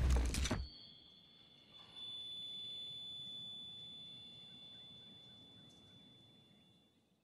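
The last of a song dies away in the first second, leaving a faint, steady high-pitched tone that fades out near the end.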